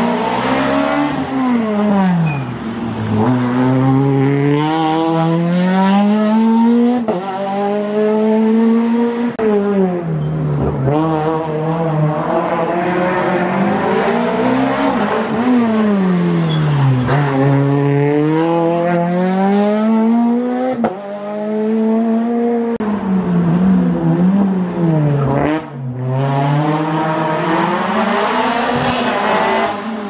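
Small rally cars, Peugeot 208s among them, driving hard past one after another on a tarmac stage: engines revving high, the note climbing and then falling steeply over and over on gear changes and lifts before corners.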